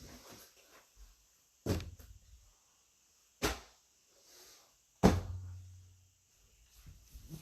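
Three separate knocks, spaced about a second and a half apart, the last the loudest and followed by a brief low hum.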